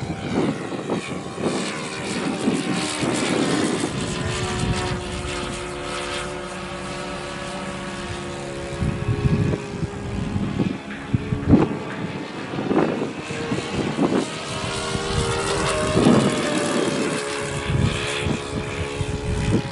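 OS FS40 four-stroke glow engine of a radio-controlled model airplane running in flight, its pitch slowly rising and falling as the plane moves about the sky, with irregular bursts of noise over it.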